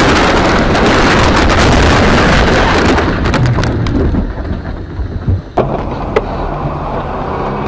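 Crash heard from inside a car with a dashcam: a loud rush of crashing and rattling noise for about three seconds, thinning into scattered knocks and clicks. About five and a half seconds in it changes to a car driving with its engine running steadily, with one sharp click.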